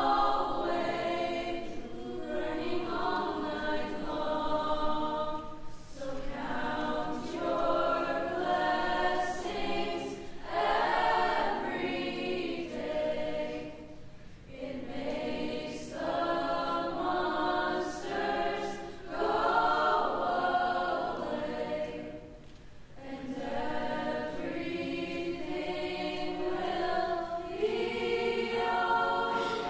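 School choir singing slow, sustained phrases, with brief dips in level about halfway through and again about three quarters of the way in.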